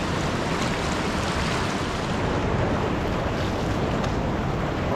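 Steady rushing of flowing river water, an even noise with a low rumble under it.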